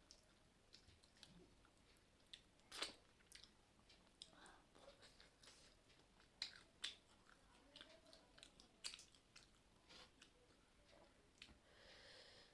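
Quiet eating sounds: soft chewing with scattered small mouth clicks and smacks.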